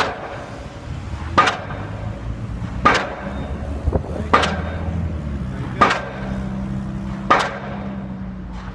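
Heavy repeated bangs, like pounding on something, struck at a steady pace about every second and a half over a low steady rumble.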